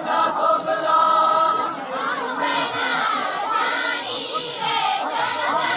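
A large group of men and women singing a Jaunsari harul folk song together in chorus, many voices overlapping, with crowd noise.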